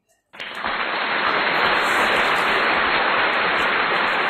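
Applause sound effect, a dense, steady wash of clapping that cuts in suddenly about a third of a second in.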